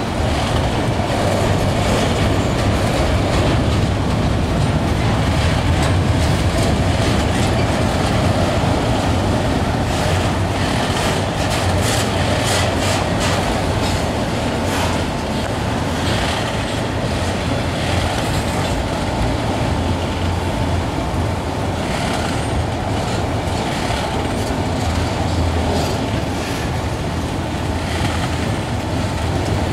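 Freight train of autorack cars rolling past on steel rails: a steady heavy rumble of wheels, with runs of clicks as the wheels cross the rail joints.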